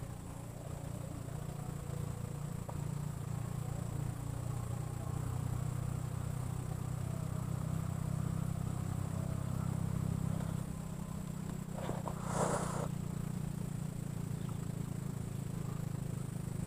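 An engine running steadily, a low even hum, shifting slightly about ten seconds in. A thin steady high tone sounds throughout, and a brief rustling burst comes about twelve seconds in.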